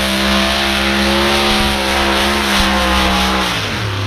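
Competition pulling tractor's engine running flat out with a steady, loud high note, then the revs drop away sharply near the end as it comes off the throttle.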